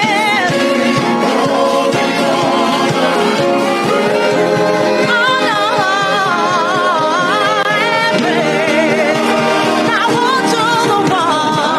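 Gospel praise-and-worship music: a singer sustaining long, heavily vibratoed, ornamented notes over steady held instrumental chords.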